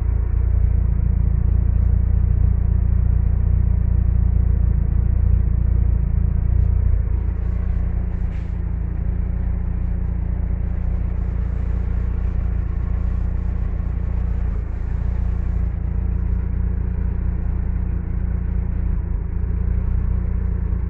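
Toyota 3S-GTE turbocharged four-cylinder engine running steadily on its first start-up with a newly fitted MegaSquirt 3 ECU on a base calibration. It gets a little quieter after about seven seconds.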